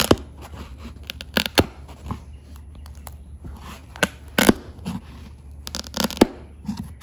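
Flathead screwdriver prying staples out of a plywood seat base and working upholstery fabric loose: irregular sharp snaps and scrapes with some tearing, the loudest around four and a half and six seconds in.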